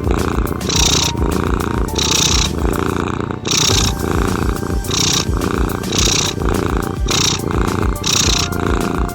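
Domestic cat purring close up, a continuous rumbling purr that changes tone with each in- and out-breath, about once a second.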